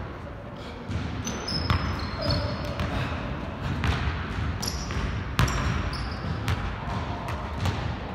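Basketball bouncing hard on a hardwood gym floor during a dribble drive and layup, about six or seven irregularly spaced bounces that ring in the big hall. Brief high squeaks of sneakers on the court come between the bounces.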